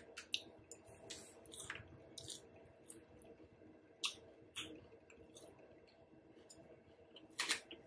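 Faint chewing: scattered soft crunches and wet mouth clicks, a little louder about four seconds in and near the end.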